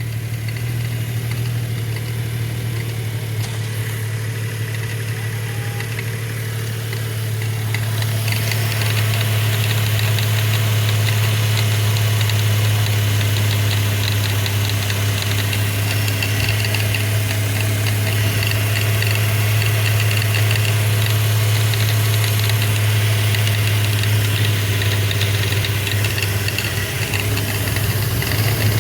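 2012 Subaru Outback 3.6R's flat-six engine running with the strange noise its owner is asking about. About eight seconds in it gets louder and a fast, fine ticking joins the steady low hum.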